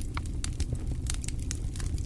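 Wood fire crackling: a quick scatter of sharp pops and snaps over a steady low rumble.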